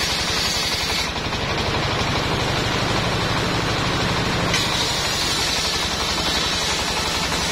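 Mobile circular sawmill at work: its engine runs with a rapid, even beat while the large circular blade rips through timber with a high hiss. The cutting hiss drops away about a second in and comes back about halfway through as the next cut starts.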